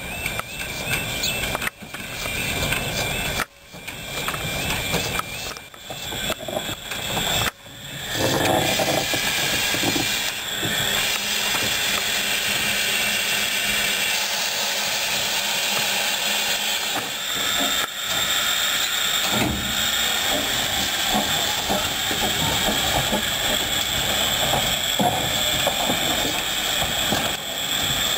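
Steady hiss of escaping steam from a small 1918 Henschel narrow-gauge steam tank locomotive. For the first several seconds the sound is choppy, with sudden drops in level; from then on the hiss runs evenly.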